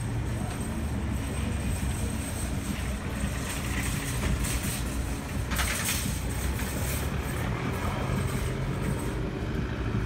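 Steady low rumble of vehicle engines and traffic across a parking lot, with a short hiss just past halfway.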